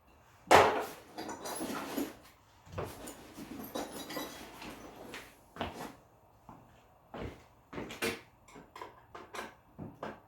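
Irregular handling noise: a sharp knock, a few seconds of rustling and scraping, then a string of separate clicks and knocks.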